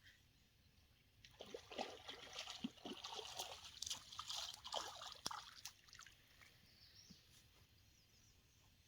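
Water splashing and dribbling as a small hooked bass thrashes at the surface and is brought in. The splashing starts about a second in and dies away after about six seconds.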